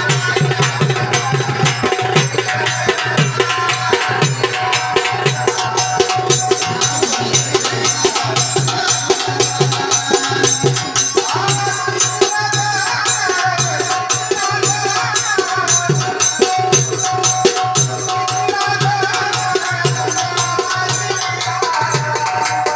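Live Marathi folk devotional music for a gan: a hand drum keeps a fast, steady rhythm, with a wavering melody over it.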